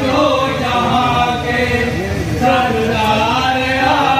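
Voices chanting a devotional naat, with long held, wavering melodic lines and several voices overlapping.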